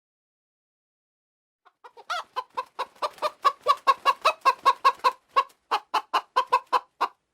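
Domestic hen clucking: a steady run of short, evenly spaced clucks, about five a second, starting about two seconds in.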